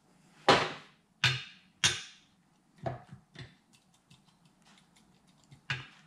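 A few short squirts and clicks: three strong ones in the first two seconds, the loudest about half a second in, then fainter clicks later. They come from oil being squirted with a hand oil can down onto the connecting rods of a Ducati Monster 659 engine's assembled crankcases, and from the parts being handled.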